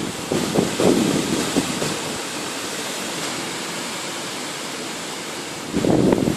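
Storm-force gusting wind, a steady rushing hiss, with gusts buffeting the microphone during the first two seconds and again near the end.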